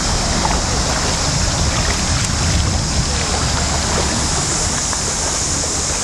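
River water pouring over a shallow submerged weir, a steady rushing hiss with a low rumble underneath.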